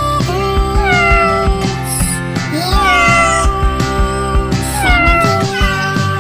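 Music track built from cat meows: repeated meow calls, each rising briefly and then sliding down in pitch, set over a steady drum beat.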